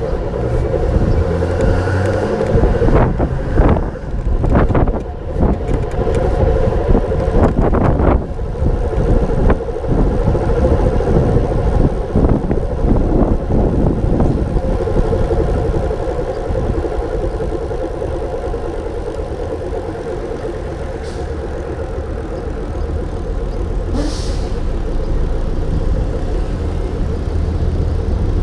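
Steady road noise of a moving vehicle, with a few knocks and rattles in the first eight seconds or so.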